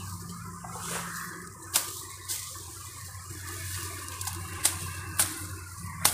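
Elephant grass and undergrowth rustling as it is grabbed and cut with a sickle. There are about five sharp snaps as stems are cut through, the loudest about two seconds in, over a steady rushing noise.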